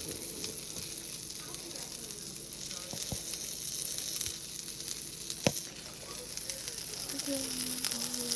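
Sausage sizzling as it fries in a non-stick pan, a steady hiss with two sharp taps, the louder one about five and a half seconds in.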